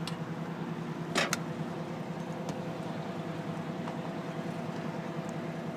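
Aerial ladder truck's engine running steadily at a constant speed, heard from the raised bucket as an even drone. A short sharp click about a second in.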